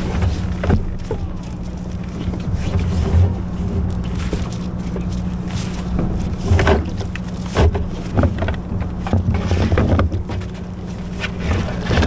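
A steady low mechanical hum on the water, with scattered knocks and rattles of gear being handled on the kayak.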